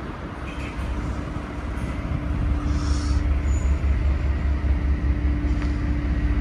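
A passenger ferry's diesel engines running: a low rumble with a steady hum, growing louder about two and a half seconds in.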